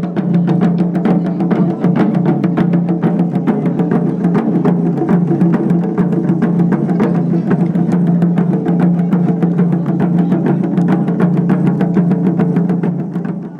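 Music: a steady low drone under rapid, dense drum strikes.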